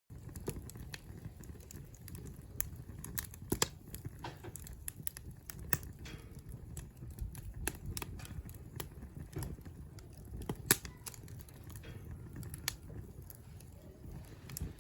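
Wood campfire crackling: irregular sharp pops and snaps over a low steady rumble, with one louder pop near the end.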